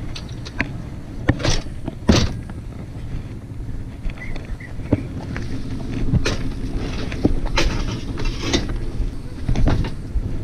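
Steel-tube weight bench being handled and lifted toward a cargo van, with several sharp metal clanks and knocks spread through, over a steady low rumble.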